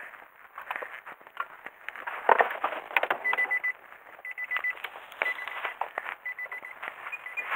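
A car's warning chime beeping in short bursts of quick high pips about once a second, starting a few seconds in, over the clicks and knocks of the car door being opened and handled.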